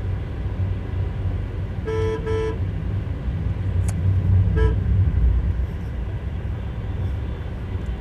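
Vehicle horn beeping twice in quick succession, then once more briefly a couple of seconds later, over the steady low rumble of a moving car on the road.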